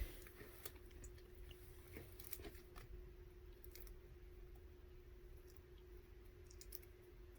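Faint squishing and scattered small clicks of hands working through slime to find seashells hidden in it, over a faint steady hum.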